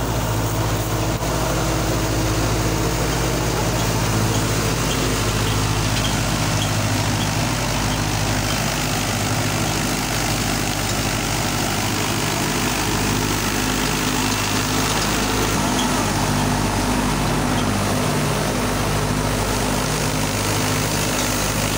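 Al-Ghazi diesel tractor engine running steadily under load, driving a thresher whose drum and blower add a steady rushing noise.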